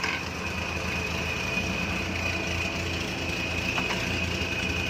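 Suzuki Jimny engine running steadily at low revs.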